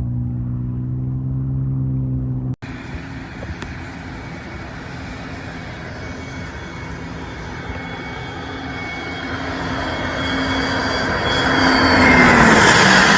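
A low droning engine hum cuts off about two and a half seconds in. Then a business jet's turbofan engines come closer, the rushing noise and high whine growing louder, and near the end the jet passes with the whine dropping in pitch.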